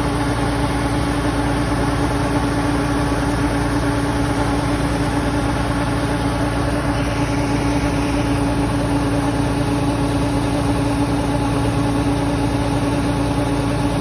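An engine running steadily at constant speed, with an unchanging hum; a higher rushing noise grows slightly about halfway through.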